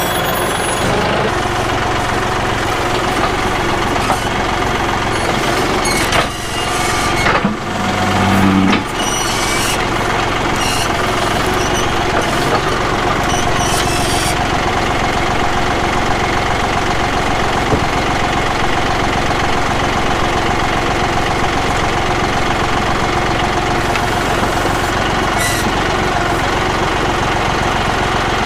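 John Deere 5055E tractor's diesel engine running steadily, with a brief dip and change in its low note about six to nine seconds in, and a steady higher whine joining about halfway through.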